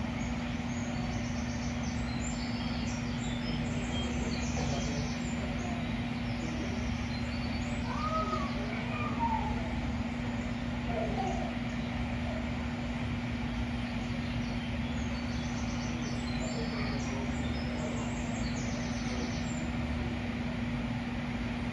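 Steady low hum with a constant tone in it, and faint bird chirps now and then.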